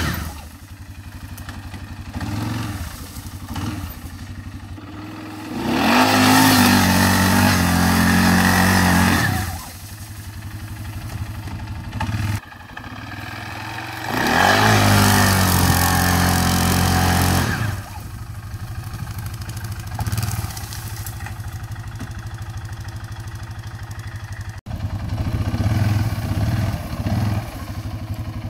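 Arctic Cat ATV engine idling, then revved hard twice for about four seconds each, with the pitch climbing and then holding, plus a few shorter blips near the end. It is straining under load, trying to drag a chained log up a steep hill without moving it.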